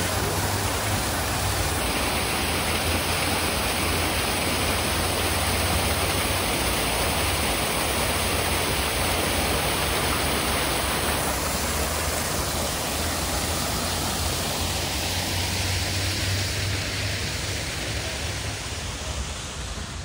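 Artificial waterfall pouring over rock ledges: a steady rush of falling water.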